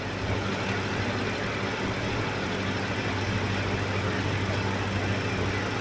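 A steady engine hum with a low, even drone, like a motor idling.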